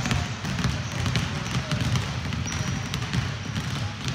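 Many basketballs bouncing on a hardwood gym floor as several players dribble two balls at once, making a dense, uneven patter of overlapping thumps.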